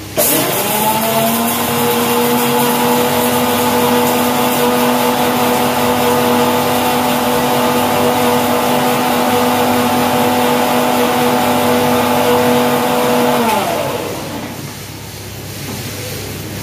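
Kitchen mixer grinder (mixie) grinding green chillies, its jar held down by hand: the motor starts suddenly, quickly winds up to a steady high whine, runs for about thirteen seconds, then is switched off and winds down.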